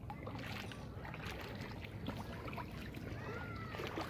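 Pool water splashing and lapping as a child swims close by, her arms paddling through the surface in a run of small, uneven splashes.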